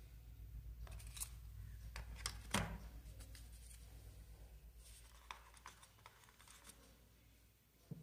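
Faint handling noise as a smartwatch is picked up and handled: a few light clicks and taps in the first three seconds, the loudest about two and a half seconds in, then softer ticks. A low steady hum runs underneath.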